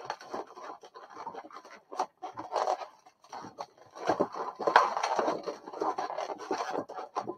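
Long latex twisting balloons rubbing and scraping against each other and against the hands as they are twisted into bubbles and woven together. The rubbing is irregular, with a couple of short pauses around the second and third seconds, and is loudest near the five-second mark.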